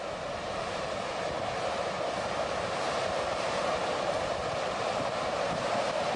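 Floodwater rushing in a steady, unbroken noise that grows a little louder over the first few seconds.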